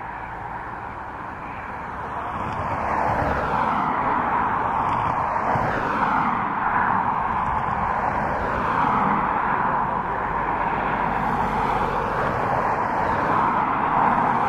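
Boeing 777 freighter's GE90 turbofan engines running as the jet moves on the runway, a steady jet roar that swells over the first couple of seconds and then holds.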